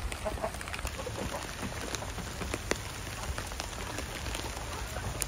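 Steady rain falling, with scattered drops ticking.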